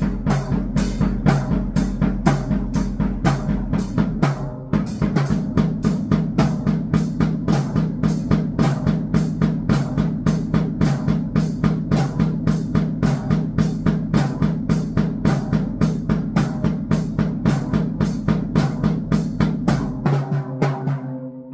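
Drum kit played at a fast, even beat over a steady low drone, with bass drum and snare hits; the rhythm breaks briefly about four seconds in and stops at the end.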